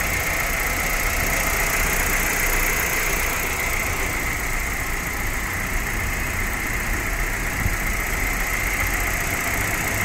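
Kia Rio's inline four-cylinder petrol engine idling steadily. It is freshly overhauled and running smoothly on two newly replaced ignition coils.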